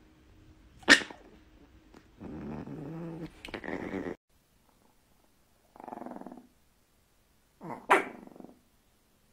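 Small chihuahuas growling in short bouts while mouthing a person's hand, with two sharp, short sounds, one about a second in and a louder one near the end.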